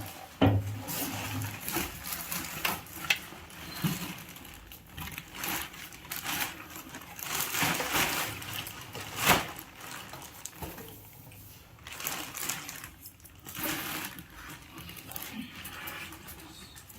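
Irregular handling noises: rustling with sharp clicks and knocks, the loudest about half a second in, three seconds in and nine seconds in.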